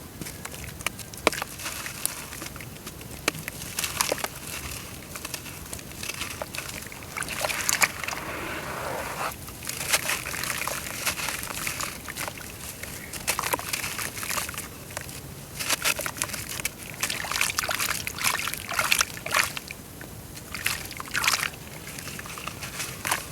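Lumps of dry brown dirt crumbling into water: an uneven crackling fizz with small splashes and sloshes, broken by scattered sharp clicks.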